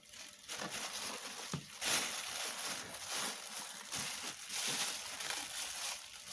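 Clear plastic packaging bags crinkling and rustling as they are handled and pulled from a cardboard box, in uneven surges.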